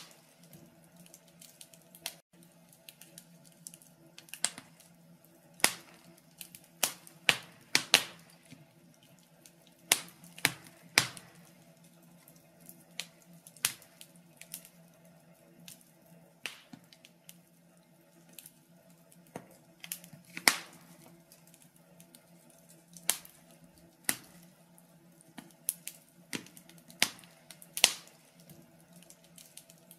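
Wood fire crackling in a stove: irregular sharp pops, sometimes a few in quick succession, over a faint steady hum.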